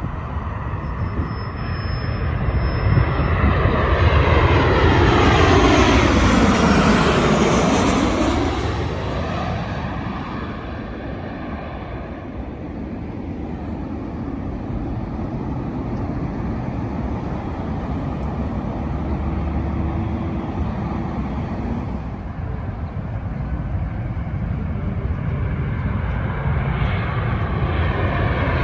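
Jet airliner passing overhead on landing approach: its engine noise swells to a peak about six seconds in, with a sweeping whine falling in pitch as it goes by, then eases to a steady rumble. Another aircraft's noise begins to build near the end.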